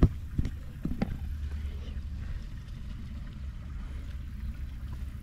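Four sharp knocks in the first second or so, the first the loudest, over a steady low rumble.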